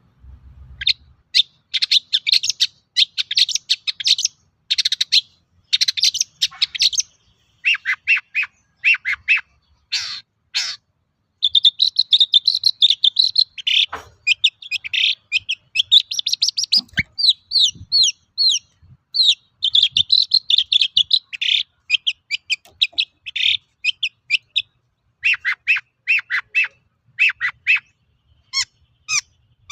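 Long-tailed shrike (cendet) in full song: fast bursts of sharp chattering notes broken by short pauses, with a run of quick downslurred whistles in the middle.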